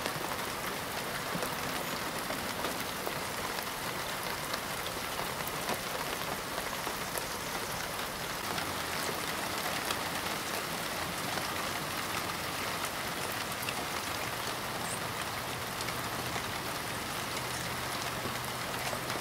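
Steady rain falling on parked cars and grass: a dense, even hiss dotted with many small drop ticks.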